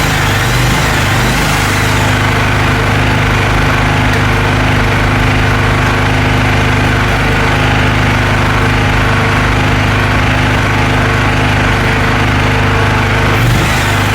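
Engine running steadily at a constant speed with an even hum; its higher hiss drops away about two seconds in and comes back near the end.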